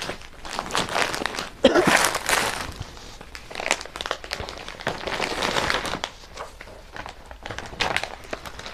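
Glossy paper catalogue pages rustling and crinkling as they are handled and turned, with a louder rustle about two seconds in.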